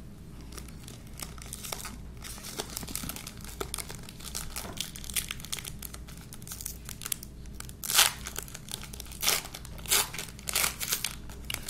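Foil wrapper of a Pokémon TCG booster pack crinkling as it is handled and torn open, with louder sharp crackles in the last few seconds.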